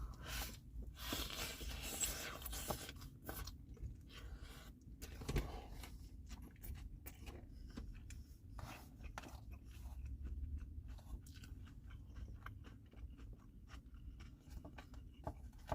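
A person chewing and biting into a fish taco, with soft irregular crunches.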